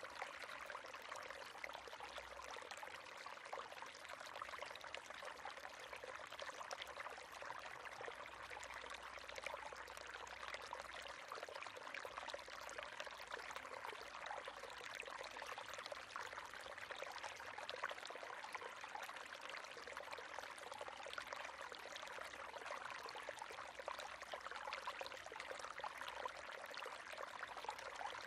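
River water running over rocks: a steady babbling flow with a constant spray of small splashes.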